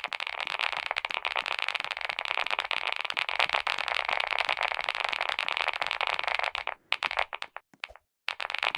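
Continuous fast clicking and rattling of small hard objects, breaking off twice near the end.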